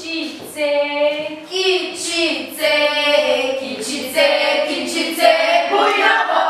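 Teenage girls singing a song without accompaniment: one voice carries the held notes at first, and the rest of the group joins in about five seconds in.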